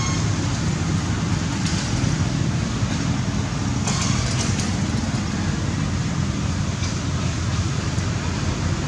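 Steady outdoor background noise: a constant low rumble with an even hiss over it, and a few faint short sounds about two and four seconds in.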